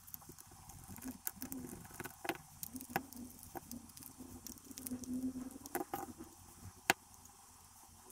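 Light clicks and scrapes of a small screwdriver and plastic pry tool working on the plastic case of a Quran reading pen, unscrewing and opening it. One sharp click stands out about seven seconds in.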